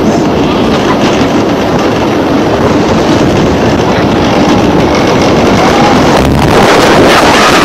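Steel roller coaster train running at full speed through a low swoop and banked turn, its track rumble nearly buried under loud, steady wind rushing over the rider's phone microphone.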